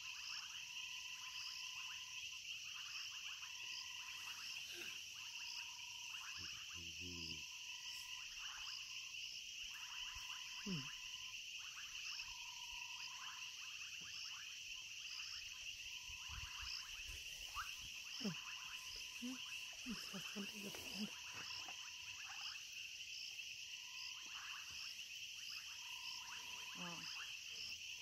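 Night-time chorus of frogs and insects: a steady high insect trill under frog calls that repeat evenly throughout. A few short sounds that slide down in pitch stand out, about 11 and 18 seconds in.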